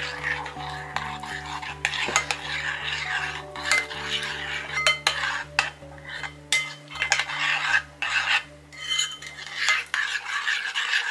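Metal fork stirring and scraping a thick mayonnaise sauce in a ceramic bowl, with frequent clinks of the fork against the bowl.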